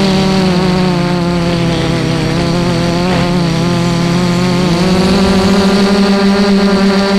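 FPV quadcopter's brushless motors and propellers, heard from the onboard camera: a steady buzzing whine whose pitch sags a little and then steps up about four and a half seconds in.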